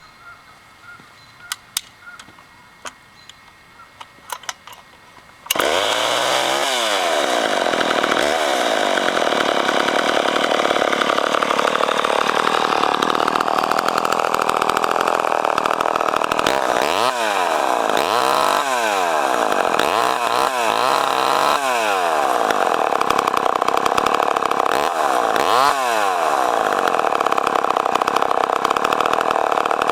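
Poulan 245 two-stroke chainsaw engine. After a few faint clicks it comes in suddenly about five seconds in and runs loud and high, revved up and down several times.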